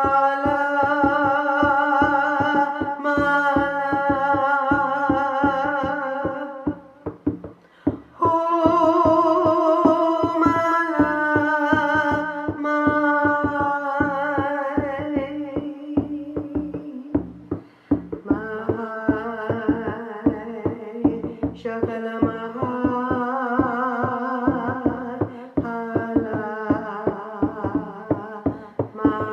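Wordless held vocal tones with a wavering vibrato, sung over a steady, fast drumbeat, as in a shamanic trance-healing chant. The voice pauses twice for breath while the drumming keeps going.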